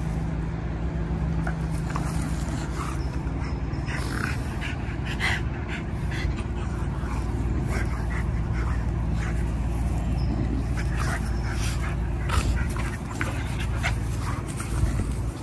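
Two young dogs, a golden retriever and a small brindle dog, play-wrestling with quick short dog sounds scattered through and no barking, over a steady low hum.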